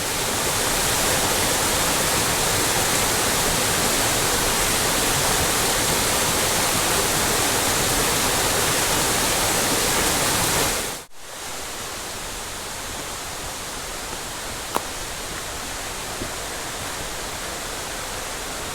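Steady rush of flowing water, a creek or cascade, fading in at the start; about eleven seconds in it cuts to a slightly quieter stretch of the same kind of rushing, with one faint tick a few seconds later.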